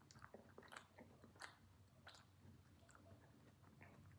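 Faint chewing of Charentais melon flesh: soft, irregular mouth clicks a few times a second.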